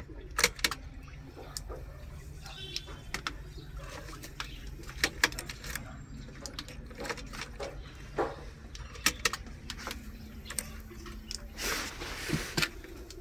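Scattered sharp clicks and knocks over a low steady hum, with a short rush of hiss near the end.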